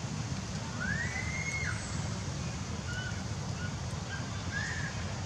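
Steady low outdoor rumble with a few thin whistled calls over it, the longest about a second in, rising, holding and then falling, followed by short chirps.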